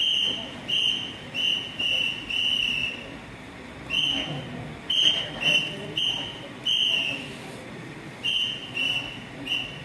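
A whistle blown in a string of about a dozen short blasts at one high, steady pitch, in an irregular rhythm with brief pauses between groups.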